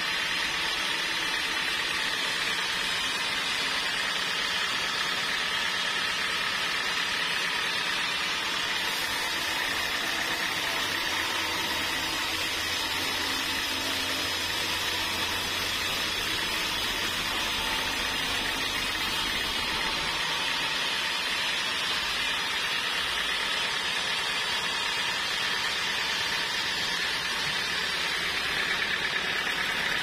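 Homemade band sawmill running and sawing through a trembesi (rain tree) log: a steady, high-pitched whine and hiss from the blade in the wood, with the saw's motor running underneath. A low hum joins for a stretch in the middle.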